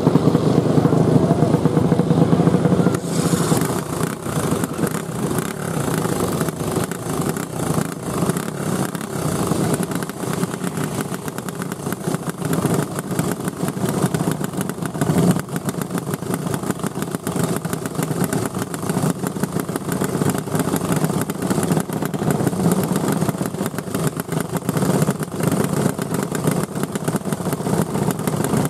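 Go-kart engines, 5 hp Briggs & Stratton flathead single-cylinders, running and revving as karts circle a dirt oval. The engines are loudest in the first few seconds, then run on more steadily.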